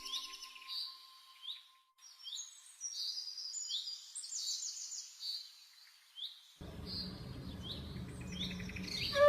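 Small birds chirping: short, high calls repeated about once a second, with faint low background noise coming in about two-thirds of the way through.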